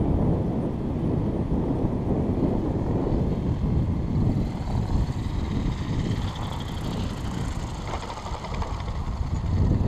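Wind rumbling on the microphone, with the faint whine of an electric RC helicopter's motor and rotor rising and falling in the middle.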